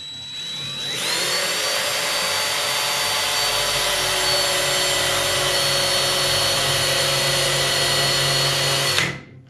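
Electric drill drilling through the car's sheet-steel door jamb: a steady whine that picks up about a second in, runs evenly and stops abruptly near the end. The metal is thick at this spot.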